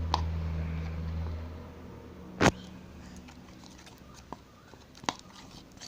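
A spoon stirring liquid silicone glue and food colouring in a bowl, with one sharp clink against the bowl about two and a half seconds in and a few faint ticks later. A low hum fades away in the first two seconds.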